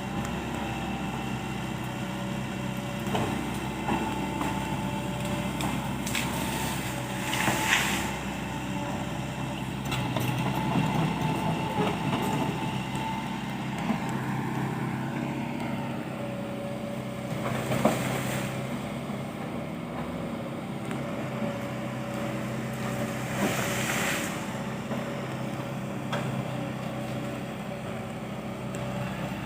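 Excavator's diesel engine running steadily under work, with a higher tone that shifts slowly in pitch. Three brief loud bursts stand out: one about a quarter of the way in, one past halfway and one about four-fifths in.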